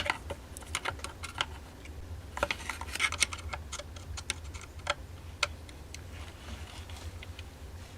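Irregular light clicks and taps of small metal parts and tools being handled while a cuckoo clock's movement is taken apart, over a low steady hum.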